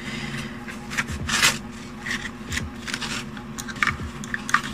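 Handling noise from a gaming mouse and its braided cable being lifted out of a foam box insert: irregular rustling, scraping and rubbing, over a steady low hum.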